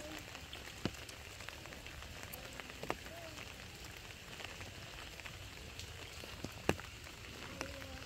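Steady rain falling, an even hiss, with a few sharp louder drop hits, the loudest about seven seconds in.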